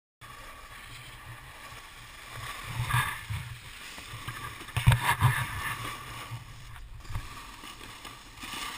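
Wind rumbling and buffeting on a helmet- or body-mounted GoPro Hero HD microphone while skiing downhill, with the hiss of skis sliding over packed snow. Louder surges about three and five seconds in.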